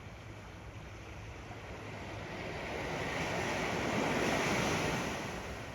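Ocean waves washing onto the sand, one wave swelling about two seconds in, peaking, then easing off near the end. Some wind on the microphone.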